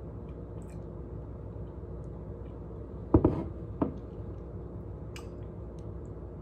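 Two sharp knocks about half a second apart, a little over three seconds in, the first with a brief ring, over a steady low hum.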